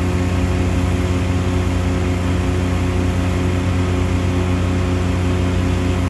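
Steady hum of a running engine on a Vermeer VacTron vacuum excavator, holding one constant pitch with no revving.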